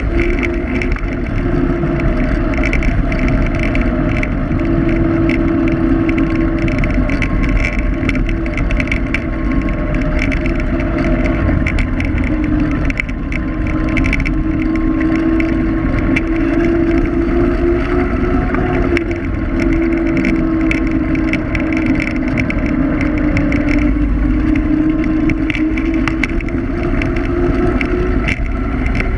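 Electric scooter riding on asphalt: a steady motor whine that drifts slightly in pitch with speed, over a continuous rumble of wind and road noise, with frequent small rattling clicks from bumps.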